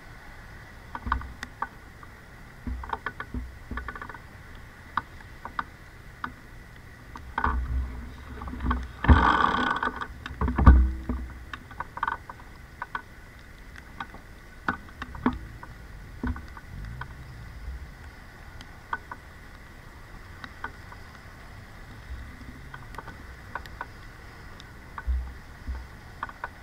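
Knocks and rattles picked up by a camera mounted on an electric bike as it rides over a rough surface, over a faint steady high whine. The knocks come irregularly, with a louder cluster of jolts about a third of the way in.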